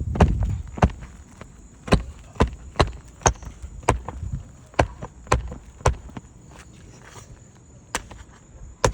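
Sharp knocks from a hand tool striking on a shingle roof while the nails of a damaged shingle are worked out, roughly two a second, thinning to a couple of isolated knocks near the end.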